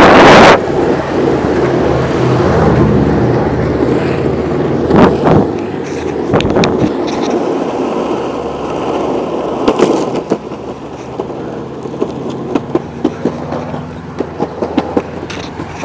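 Longboard wheels rolling fast on asphalt: a steady rumble with scattered sharp clicks and knocks, more frequent in the second half. It opens with a loud rush of noise.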